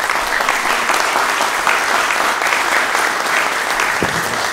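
Members of parliament clapping in the chamber: dense, steady applause at the end of a speech.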